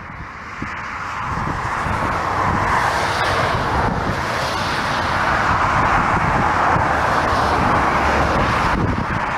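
Landing airliner's engines: a rushing roar builds over the first few seconds, holds steady, then drops off sharply near the end, over heavy wind buffeting on the microphone.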